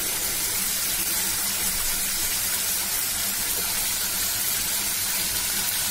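Diced chicken breast sizzling steadily in hot oil in a nonstick frying pan, the meat now cooked through.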